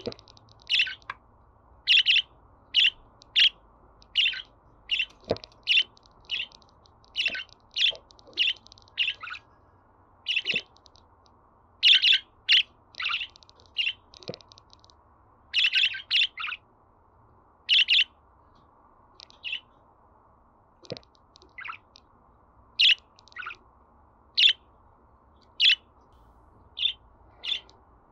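Budgerigar chirping: a steady run of short, sharp, high-pitched chirps, one to two a second, now and then bunched and broken by short pauses.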